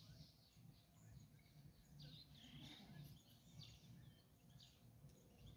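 Near silence, with faint scattered bird chirps and a low steady rumble.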